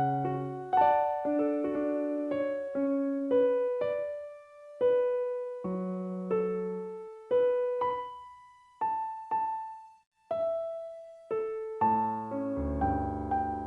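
Slow piano music: a sparse melody of single struck notes, each dying away, with fuller chords and bass notes coming back near the end.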